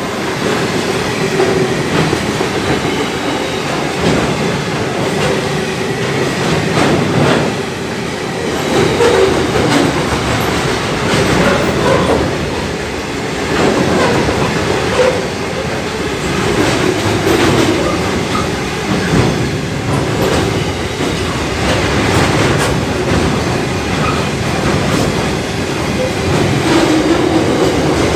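A long freight train's wagons rolling past at close range: a steady rumble of wheels on rail with repeated clacks over the rail joints and a faint wheel squeal.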